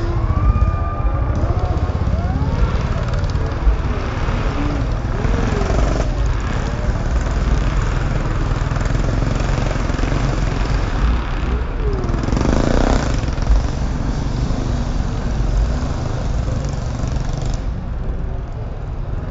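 Grasstrack racing motorcycles running on the track, their engine pitch rising and falling as they rev, with a louder surge about two-thirds of the way through.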